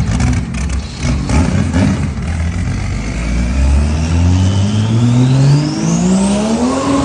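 Car engine accelerating hard, uneven at first, then its pitch climbing steadily for several seconds with a thin high whine rising along with it.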